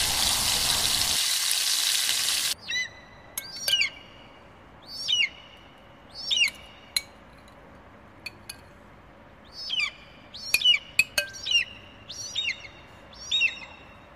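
Steak sizzling on a barbecue grill, a steady hiss that cuts off abruptly after about two and a half seconds. Then a bird calls over and over in short, sharp chirps, with a few sharp clicks in between.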